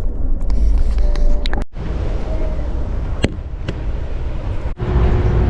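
Low rumble and rattle of a moving passenger train heard from inside a sleeper car, with a few sharp clicks. The sound drops out for an instant twice, and a steady hum joins near the end.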